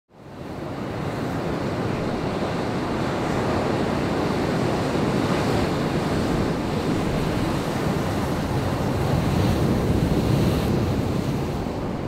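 Atlantic surf breaking on a beach: a steady rush of waves that fades in over the first half second and swells slightly now and then.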